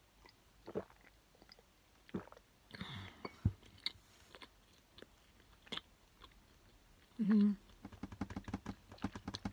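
A person eating: chewing a mouthful of bread and drinking coffee from a glass to wash it down. Scattered small clicks and taps run through it, with a short throaty sound about seven seconds in and a quick run of small clicks near the end.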